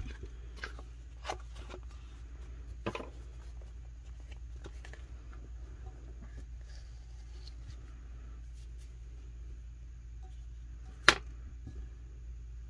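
Hand work on a tumbler with a plastic squeegee and vinyl decal sheet: a few soft clicks and taps in the first three seconds, then one sharp knock about eleven seconds in, over a steady low hum.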